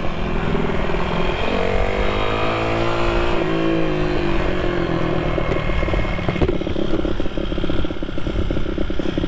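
IMR GP20 pitbike's single-cylinder four-stroke engine revving under the rider, rising in pitch about two seconds in and falling away from about four seconds. It then settles into a slower, uneven off-throttle beat as the bike slows.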